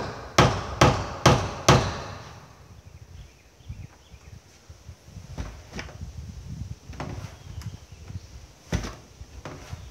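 Hammer blows driving shims behind a door jamb to push the frame over: four sharp blows about two a second in the first two seconds, then a few lighter knocks and one more blow near the end.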